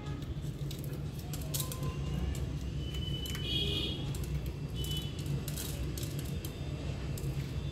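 Light clicks and rustles of green chilli seeds being picked out by hand and dropping onto a ceramic plate, over a steady low background hum.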